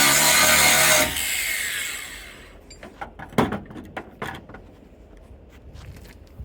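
A power tool running at a steady speed is switched off about a second in and winds down, followed by scattered knocks and taps, one louder knock in the middle.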